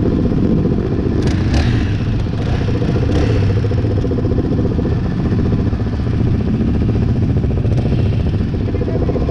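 Off-road vehicle engine running steadily, with a few brief clattering rattles in the first three seconds.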